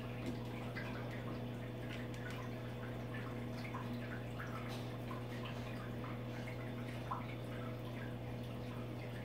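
Aquarium water dripping and bubbling in small scattered plinks over a steady low hum.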